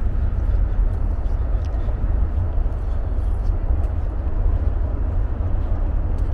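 Wind rumbling on the microphone of a small handheld camera in a snowstorm, a steady low buffeting with a hiss over it.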